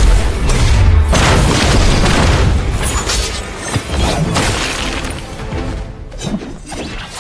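Film fight sound effects over dramatic music: a deep boom at the start as two blasts of energy collide, then rushing, crashing effects that fade toward the end.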